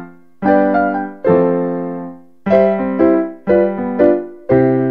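Outro theme music on a keyboard: a run of struck chords, each ringing out and fading before the next, about one to two a second.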